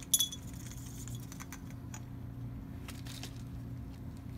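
Crushed oil shale being tipped into a glass Erlenmeyer flask: one sharp, ringing glass clink just after the start, then a few light rattles and clicks of small rock pieces against the glass, over a steady low hum.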